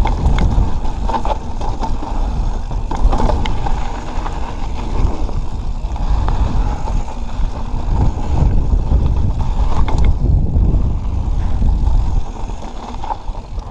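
Mountain bike riding fast down a dirt trail: a heavy, steady low rumble of wind buffeting the microphone and tyres rolling on dirt, with scattered knocks and rattles of the bike over bumps. It eases somewhat near the end.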